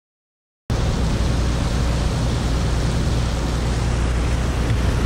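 Silent for the first moment, then from under a second in a small passenger ferry's engine drones steadily with a low hum, mixed with wind and water noise as the boat runs across the bay.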